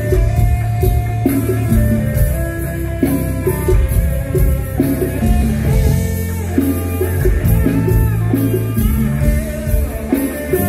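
Live band playing instrumental music through the stage sound system: electric guitar over drum kit, with a steady beat and sustained low notes.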